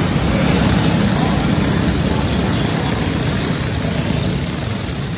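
A pack of racing go-kart engines running together as the field passes close by inside a large indoor arena. The sound eases a little near the end as the karts move away.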